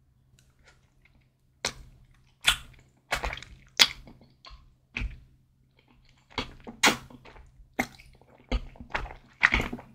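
Close-miked eating sounds: wet slurps and chews as a thick noodle from spicy malatang broth is sucked in. About a dozen short, sharp mouth sounds come at irregular intervals, starting about a second and a half in.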